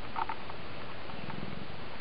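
Oriental cat purring steadily, with a few faint scratches of its claws against a hand.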